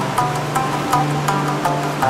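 Background music with a steady beat of about three strikes a second over a bass line that moves between held notes.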